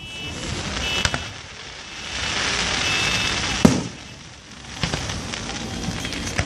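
Fireworks going off: a few sharp bangs, the loudest a little past halfway, with a spell of crackling before it.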